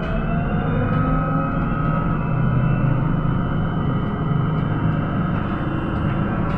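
Inside a PKTS-6281 Admiral trolleybus under way: steady low rumble and road noise, with the electric traction drive's whine gliding up in pitch at the start and then levelling off.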